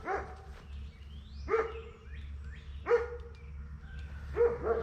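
A dog barking, four single barks about a second and a half apart, over a steady low rumble.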